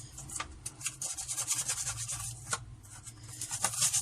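A toothbrush scrubbing a washing machine's bleach dispenser drawer in quick, scratchy back-and-forth strokes, with a faint low hum underneath.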